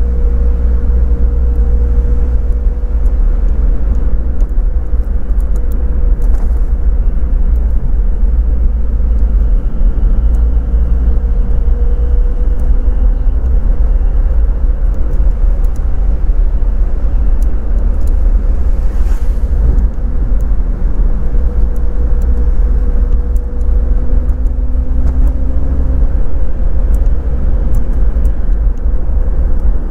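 Daihatsu Copen driving at a steady cruise: a loud, steady low rumble of road and wind noise under an engine drone that holds a nearly constant pitch.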